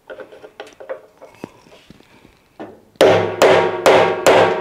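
Hammer tapping a chisel set against the edge of a seized Torx bolt in a washing machine drum pulley, to shock the bolt loose. Faint clicks as the chisel is set on the bolt, then from about three seconds in a steady run of sharp ringing strikes, about two and a half a second.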